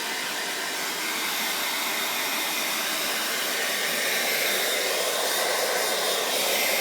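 Handheld hair dryer blowing steadily, an even rushing hiss of air and fan.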